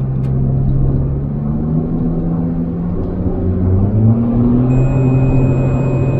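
Nissan car's engine and road noise heard from inside the cabin while driving at speed, the engine note steady and then climbing a little about halfway through as it pulls.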